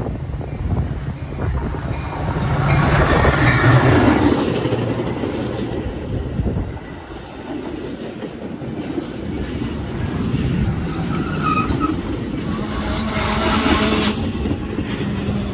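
Metra commuter train led by an EMD F40PH-3 diesel locomotive passing close by, its engine rumble loudest a few seconds in. Then the stainless bilevel coaches roll past with a steady clatter of wheels on rail. Short high squeals come through near the end as the train slows to stop at the station.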